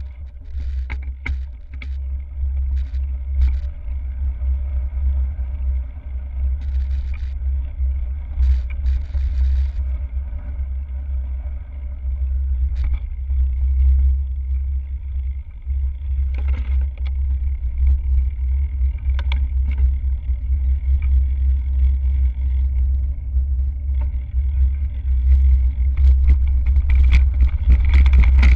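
Hardtail mountain bike rolling over gravel and tarmac, heard through a handlebar-mounted camera: a steady low rumble of tyres and frame vibration, with scattered clicks and rattles from the bike.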